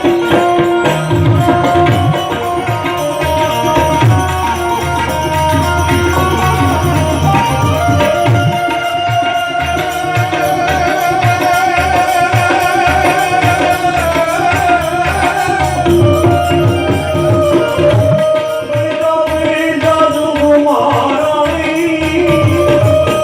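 Gujarati folk music: tabla keeping a steady, dense rhythm under a held melody line that bends in pitch now and then.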